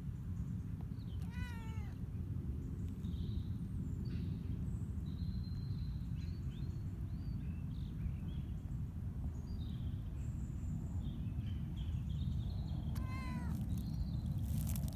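Ragdoll cat meowing twice, once about a second and a half in and again near the end, each call bending down in pitch. Small birds chirp faintly in between.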